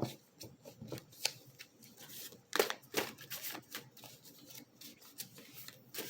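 Tarot cards being shuffled and handled: an irregular run of quick flicks and snaps, with a couple of louder ones about two and a half to three seconds in.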